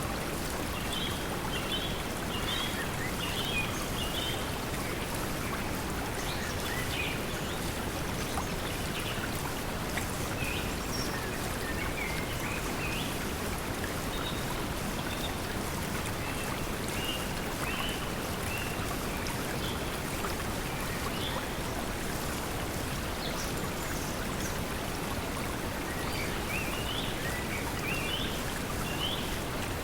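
Steady pink noise mixed with flowing water, with bird chirps in short bursts near the start and again near the end.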